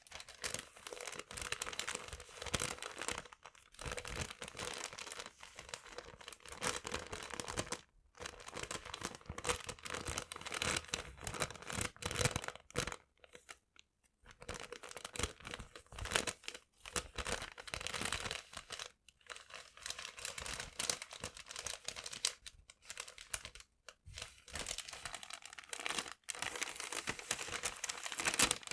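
Paper crinkling and tearing in dense crackling runs, broken by a few brief pauses.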